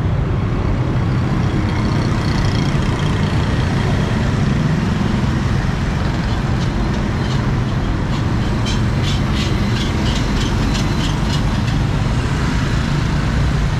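Street traffic noise: motorbikes and other vehicles running steadily on a busy road. About halfway through there is a quick run of high clicks.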